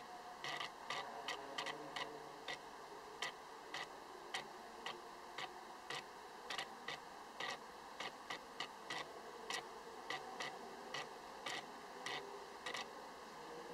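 Autofocus drive of a Tamron 90mm F2.8 Di macro lens hunting for focus: a string of short, irregular mechanical clicks, about two to three a second, over a faint steady hiss.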